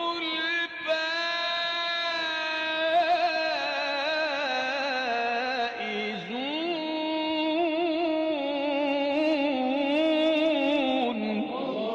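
A man reciting the Quran in a drawn-out, melodic chant: long held notes with wavering ornaments. A brief break and rising glide come about halfway through, then another long phrase that ends just before the close.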